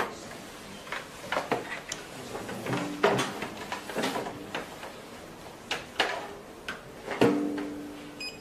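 Irregular plastic clicks and knocks as a facial machine's handpiece is unplugged and the ultrasound handpiece is plugged in and handled, a few knocks sharper and briefly ringing.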